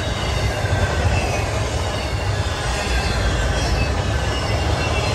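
Norfolk Southern intermodal freight train's trailer-carrying flatcars rolling by: a steady rumble of steel wheels on the rails, with faint high wheel squeal.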